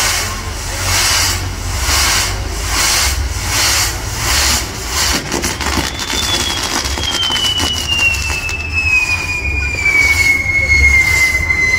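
Castillo fireworks tower firing: spark fountains on the spinning wheels hiss in a pulsing rhythm, about three swells every two seconds, with crackling about halfway through. Then a long shrill whistle slides slowly down in pitch to the end.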